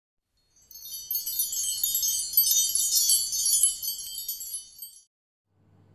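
A shimmering cascade of high, tinkling chime tones, like wind chimes, starting about half a second in and fading out around five seconds.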